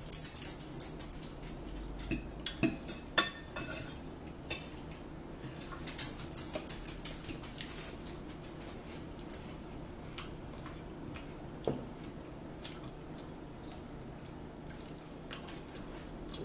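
Forks clicking and scraping against plates as two people eat, in scattered light clicks that come thickest in the first few seconds and thin out later.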